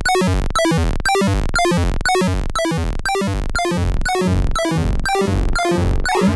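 8-bit style square-wave synth lead from the Serum soft synth playing quick, short repeated notes that jump in pitch by octaves. A comb filter is being turned up on it, and from about four seconds in its tone sweeps and rings.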